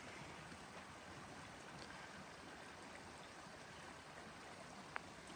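Faint, steady rush of a small stream or creek, with one brief click near the end.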